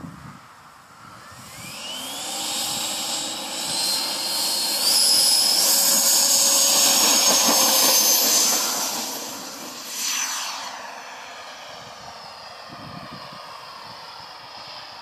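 Skymaster F-18 RC jet's 120 mm, 880 kV electric ducted fan spooling up with a high whine that climbs in pitch in steps over the first few seconds of the takeoff run. The whine is loudest in the middle, drops sharply in pitch as the jet passes about ten seconds in, then carries on fainter as it climbs away.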